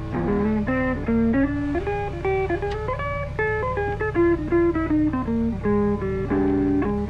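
Background music: a guitar tune with a quick melody of short notes stepping up and down.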